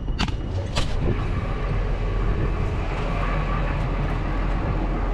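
Tractor engine running steadily with a low hum. Two sharp clicks come just after the start and again near a second in.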